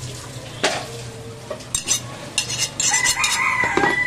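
Butcher's cleaver chopping goat meat on a wooden chopping block: one sharp chop about half a second in, then a run of short knocks and scrapes as the blade and meat are handled on the block.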